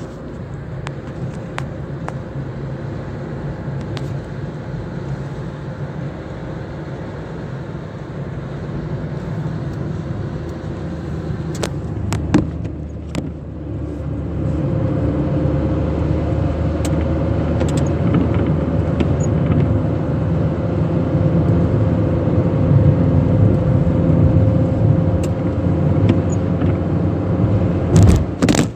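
Car driving on a wet road, heard from inside the cabin: a steady rumble of engine and tyres with scattered ticks, growing louder about halfway through.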